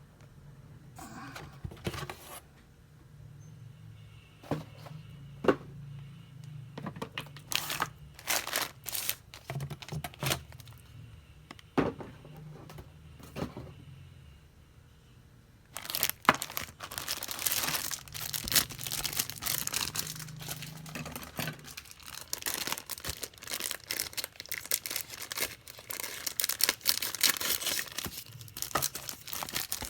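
Plastic packaging of a RE-MENT miniature set being handled and opened by hand: scattered small clicks and rustles, then from about halfway dense crinkling and tearing of plastic wrapping.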